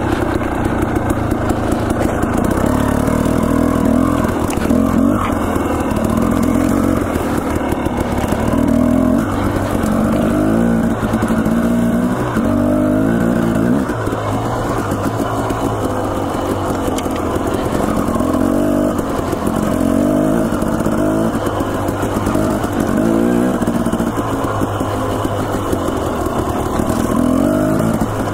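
Dirt bike engine heard from on board the bike, its pitch repeatedly rising and dropping back as the rider opens and closes the throttle over rough trail.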